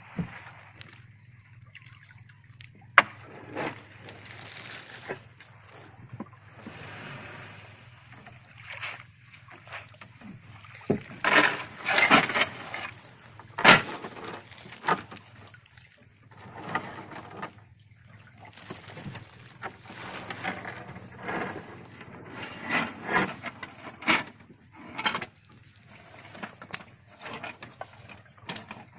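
Irregular splashing and sloshing of shallow water, with a few sharp knocks, the loudest about fourteen seconds in. A steady high-pitched whine runs underneath.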